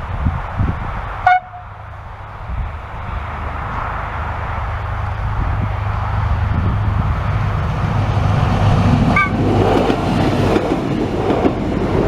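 A diesel Minuetto multiple unit approaches, its engine and wheel-on-rail noise building steadily. Two short horn toots sound, one about a second in and one near nine seconds in.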